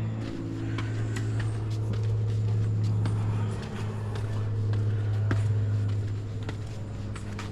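A steady low mechanical hum, like a motor or engine running, with scattered light clicks and taps over it.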